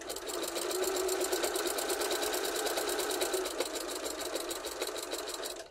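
Computerized sewing machine stitching a seam through cotton fabric at a steady speed: a rapid, even run of needle strokes that stops suddenly just before the end.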